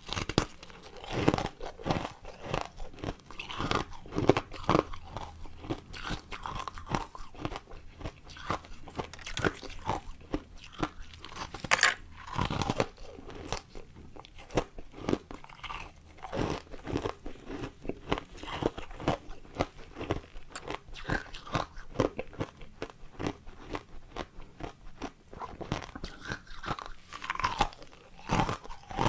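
Ice cubes being bitten and chewed close to the microphone: a continuous run of irregular crunches and crackles, the loudest about 12 seconds in.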